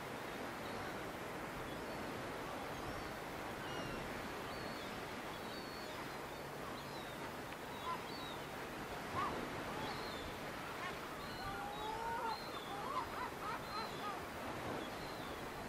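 Steady coastal outdoor hiss of wind and distant sea, with scattered high bird chirps and, in the second half, a few louder short gliding calls.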